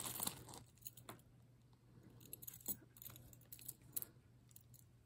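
Small metal lapel pins and costume jewelry clinking and tapping against each other as they are picked up and handled: a scatter of faint, light clicks.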